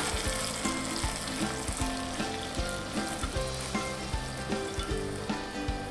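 Sliced mushrooms sizzling in a pot with freshly added white wine, stirred with a wooden spoon, with scattered light knocks.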